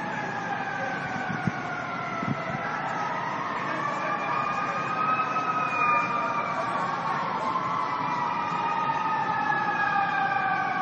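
Fire truck sirens wailing, several overlapping with slowly rising and falling pitch.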